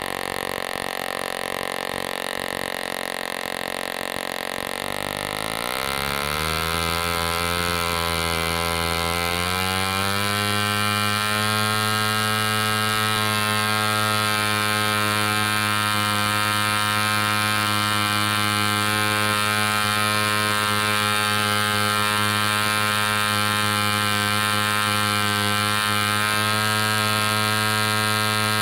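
1946 Super Cyclone .604 (10cc) two-stroke spark-ignition model engine turning a 14x6 propeller on a test stand, running steadily at just under 3,000 RPM. About six seconds in it picks up speed over a few seconds and settles into a steady run at about 6,400 RPM.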